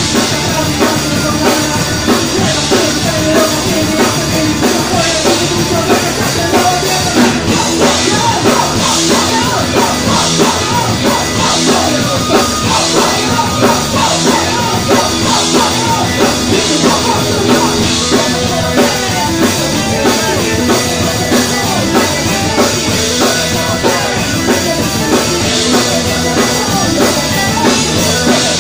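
Live rock band playing loudly, driven by a drum kit with regular cymbal accents, heard from among the audience.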